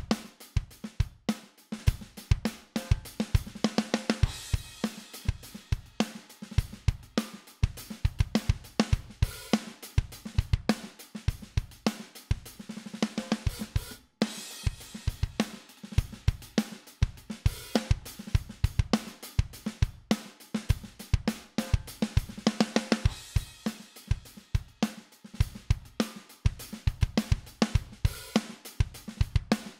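A drum kit groove played back as a drum bus through a Midas 522 500-series compressor: a steady beat of kick, snare and hi-hat, with a cymbal crash coming round every few bars.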